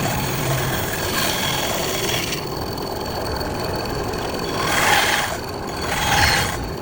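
Bandsaw running and cutting wood, a steady mechanical noise with a faint high whine. The cutting noise swells twice near the end.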